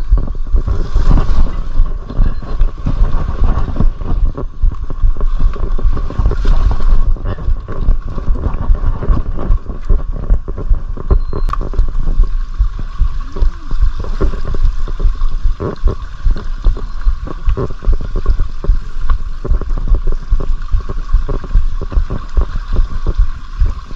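Mountain bike rattling and knocking over rough trail ground, many irregular knocks, with wind rumbling on the microphone.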